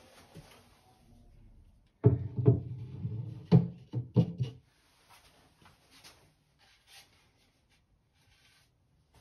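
Wooden knocks and thumps as pieces of oak are handled and set into a wooden cupboard: a cluster of sharp knocks about two to four and a half seconds in, then only faint small ticks and rustles.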